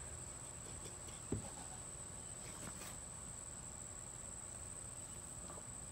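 Steady high-pitched insect trill. A single short dull thump comes a little over a second in.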